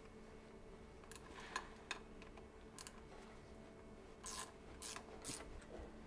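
Faint scattered clicks and scrapes of gloved hands handling the steel parts of a manual lathe's tool post and chuck, over a steady low hum.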